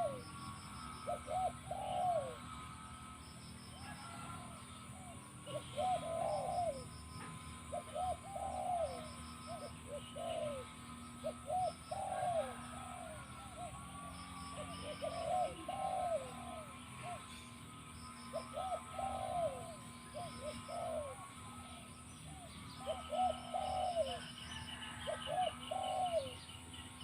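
Spotted dove cooing over and over in short repeated phrases, one every second or two. Faint chirps of small birds come in behind it, with a brief high trill near the end.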